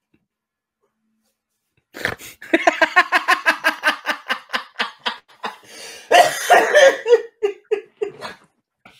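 A man laughing hard in rapid, rhythmic bursts, starting about two seconds in, with a rougher cough-like stretch around six seconds in.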